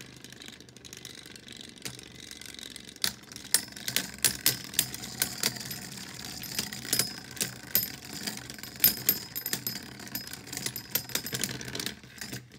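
Two Beyblade Burst tops, Astral Spriggan on a metal driver and Savior Valkyrie, whirring as they spin in a plastic stadium. From about three seconds in there are many sharp irregular clicks as they strike each other. The sound cuts off suddenly near the end.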